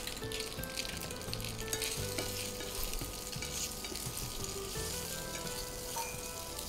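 Boiled macaroni sizzling in hot oil with garlic and chili flakes in a nonstick pan, stirred with a spatula. A steady hiss runs throughout, with light scrapes and ticks of the spatula against the pan.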